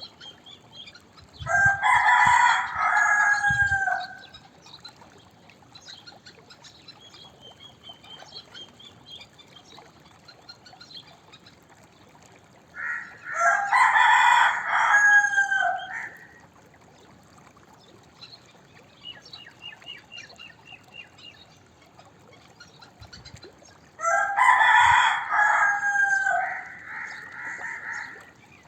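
Rooster crowing three times, about eleven seconds apart. Each crow lasts about two and a half seconds.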